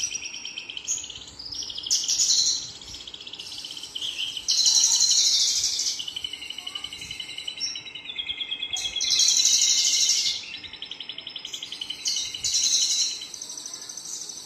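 Male Horsfield's bush lark (branjangan) singing: a continuous run of high, rapid trills and chatter, swelling into louder bursts every few seconds.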